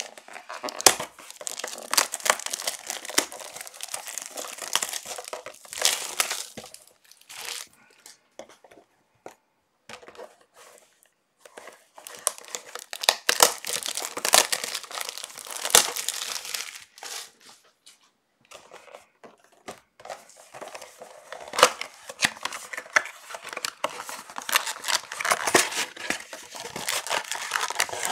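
Trading-card packaging being torn open and crumpled by hand: crinkly wrapper noise with sharp crackles, in three bouts separated by short pauses.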